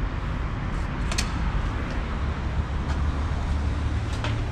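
Steady low rumble of road traffic along a city street, with a few short sharp clicks, one about a second in and another near the end.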